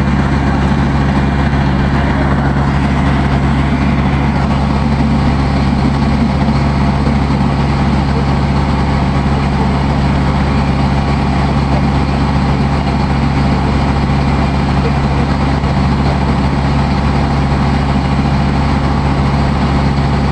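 Water taxi's engine running steadily under way, a constant low drone with a wash of noise over it and no change in speed.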